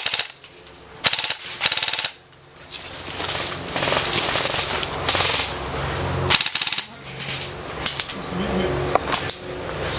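Airsoft guns firing on full auto: several rapid rattling bursts, the longest running a few seconds through the middle.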